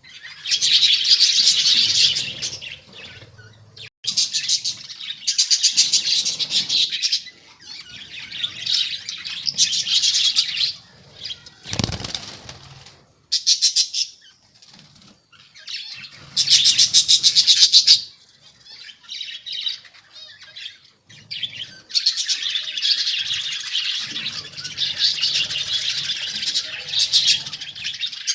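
A colony of budgerigars chattering and chirping, with repeated bursts of wings flapping as birds fly about. A single sharp knock about twelve seconds in.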